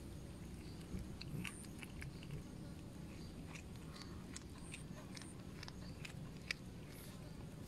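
A cat biting and chewing on a small snake: faint, irregular wet clicks and crunches, with one sharper click about six and a half seconds in.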